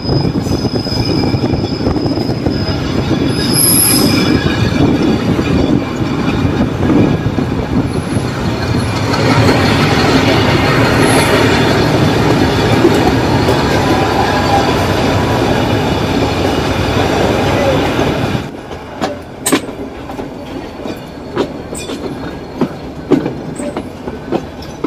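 Nilgiri Mountain Railway train running along the track, with steady rolling rail noise and a thin high wheel squeal in the first few seconds. About eighteen seconds in, the noise drops suddenly to a quieter rumble with scattered clicks and knocks.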